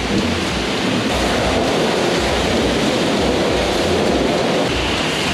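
Steady, loud rush of water spray with a low machine rumble pulsing underneath, in an enclosed truck wash bay.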